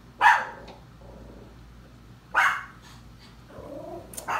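A man drinking a glass of beer, with two short, rough throat sounds about two seconds apart, the loudest things heard; a faint sound and a click follow near the end.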